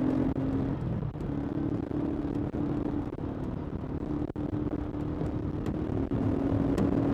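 Small motorcycle engine running steadily while riding, with a low rumble underneath.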